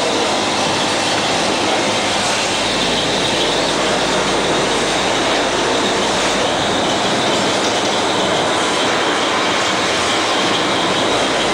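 Rotary PET-bottle filling machine running: a steady, loud mechanical hiss with a faint constant whine.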